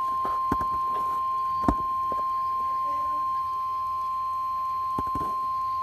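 Emergency alert warning tone for a tornado warning: a single steady tone held at one pitch just above 1 kHz, the National Weather Service's 1050 Hz warning alarm signalling that a warning message follows. A few faint clicks sound under it.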